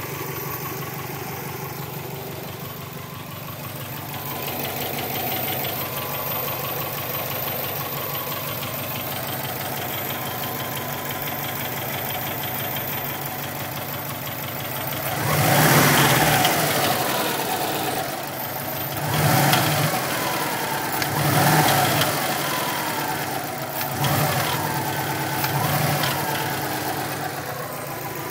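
Subaru WRX turbocharged EJ20 flat-four idling with a knocking sound, then blipped five times in the second half. The owner suspects the turbo or a spun crankshaft bearing.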